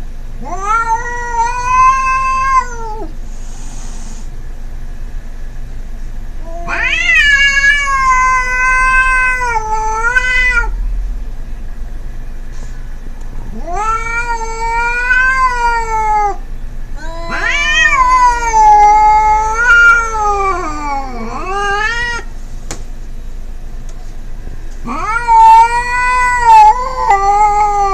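Cats yowling at each other in a territorial standoff with a feral cat: five long, wavering wails of two to four seconds each, with pauses between them.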